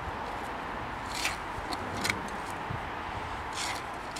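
A narrow-bladed trowel scraping and digging loose soil out of a mole-trap hole, three short scrapes over a steady background hiss.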